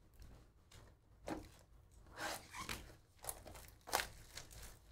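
Plastic shrink wrap being torn and crinkled off a sealed trading-card box, in several short, sharp rips and crackles.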